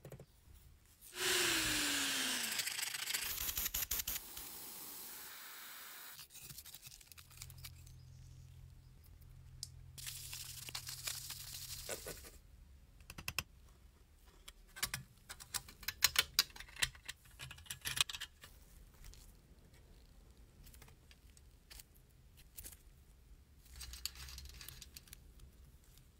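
Handling and fitting small painted metal toy parts: scattered clicks and scrapes, busiest in the middle. A loud hiss with a falling tone lasts about three seconds near the start.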